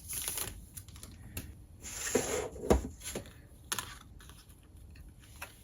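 Hands handling and unpacking merchandise: scattered light clicks and taps, with a longer rustle about two seconds in.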